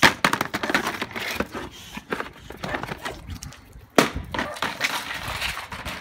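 A black plastic pot knocking and scraping on brick paving as a boxer puppy noses and pushes it, with the dog's claws scuffing the bricks. A sharp knock comes at the very start and another about four seconds in.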